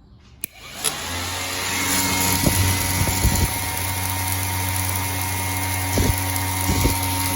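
A switch clicks, then a pair of electric motorcycle radiator cooling fans spin up within about a second and run with a steady whir and hum. A few light knocks sound over the whir.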